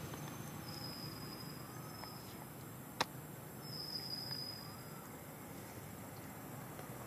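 Outdoor forest ambience with two drawn-out, high-pitched insect calls, each held steady for over a second, and a single sharp click about three seconds in.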